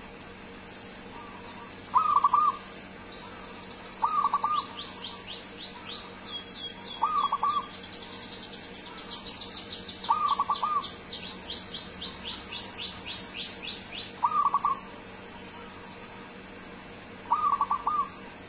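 Zebra dove (perkutut) cooing: six short, loud phrases, each a quick cluster of notes, a few seconds apart. Between them, from about four seconds in until about three-quarters of the way through, another bird chirps in a fast run at a much higher pitch.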